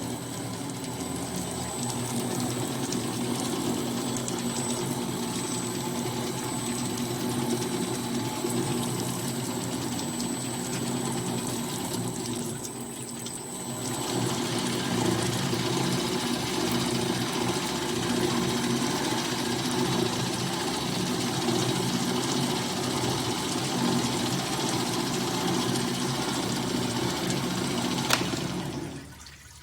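Kläger HBS 265 horizontal metal band saw running steadily with a constant low hum. The high hiss thins briefly about halfway through, and there is a sharp click shortly before the sound dies away at the end.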